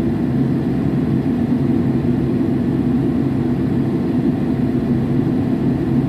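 Mini excavator's diesel engine running steadily, heard from the operator's cab.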